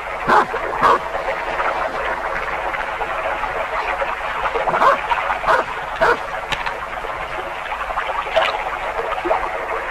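A dog barking in scattered short bursts over a steady background chorus of frogs.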